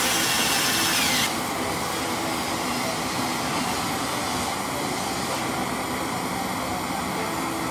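Steady hiss of a handheld gas torch's blue flame playing on a burning object. A brighter sound with a short falling tone cuts off about a second in, leaving the torch alone.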